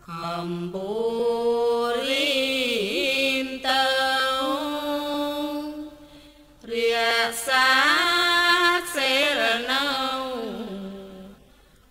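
A Buddhist monk's solo melodic chanting in Thai, sung in two long phrases with held notes that slide and waver, and a short pause between them.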